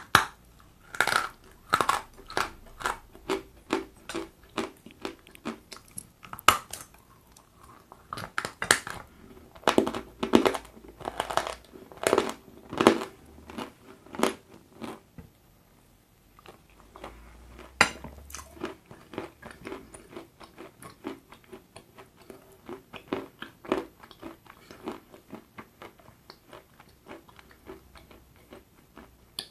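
A person chewing a hard, crunchy white chunk close to the mic. For about the first fifteen seconds there are sharp crunches, roughly two a second. After a brief pause and one sharp crack, it turns to softer, quicker chewing.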